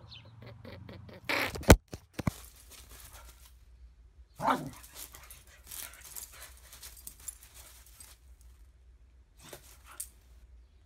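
A small dog barking at a rabbit while they play, once about four seconds in and again near the end, over scuffling in snow. A sharp click about two seconds in is the loudest sound.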